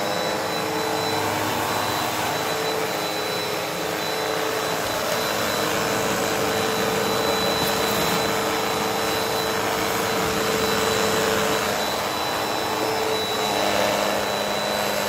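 Bagless upright vacuum cleaner running steadily on carpet, a constant rushing motor noise with a thin high whine. The motor note shifts slightly about twelve seconds in.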